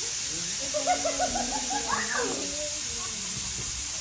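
Steady hiss throughout, with faint distant voices about a second in.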